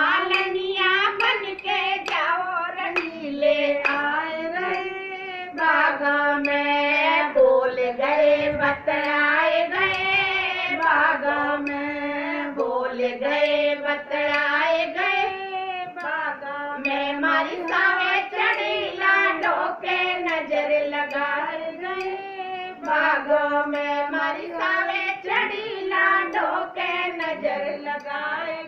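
A group of women singing a Haryanvi folk song (lok geet) together in one melody line, with hand claps sounding along.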